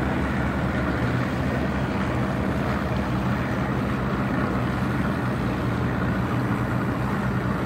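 Boat engine running at a steady pitch, with noise of water and wind over it.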